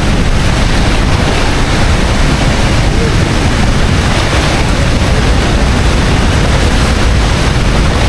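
Loud, steady roar of the Rhine Falls' water at close range, with wind buffeting the microphone.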